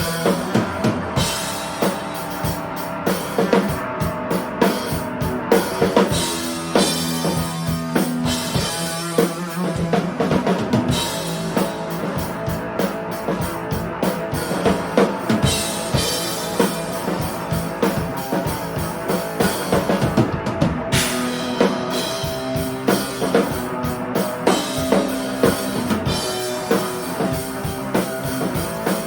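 A live band jamming: a drum kit keeps a steady beat with bass drum and snare, under held notes from other instruments.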